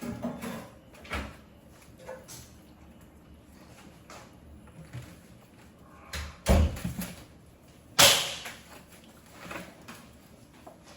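Scattered household knocks and clatter, with a heavy thump about six and a half seconds in and a sharp, louder bang about eight seconds in, like a cupboard door or drawer banging shut.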